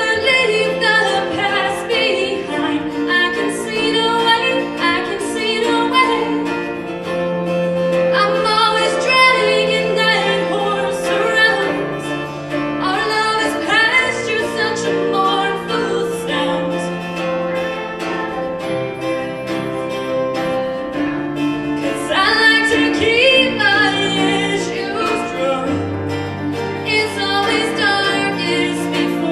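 Female show choir singing a pop song: lead voices on microphones carry the melody over long held chords underneath.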